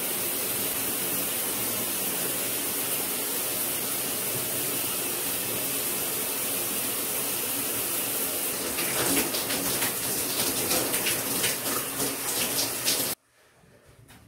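Shower running: a steady spray of water, turning into heavier, uneven spattering about nine seconds in, then cutting off abruptly near the end.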